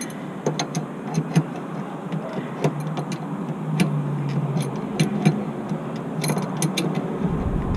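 Scattered clicks and taps of hand tools working on A/C line fittings over a steady low hum, with a low rumble coming in near the end.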